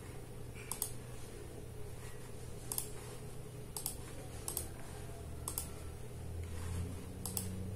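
Computer mouse clicking while navigating the DVR's on-screen menu: about six sharp single clicks spaced irregularly, roughly a second apart, over a steady low hum.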